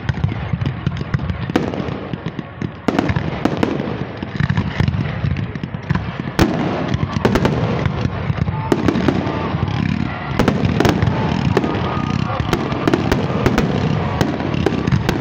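Fireworks display going off in rapid succession: many sharp bangs over dense, continuous crackling from ground fountains and aerial bursts.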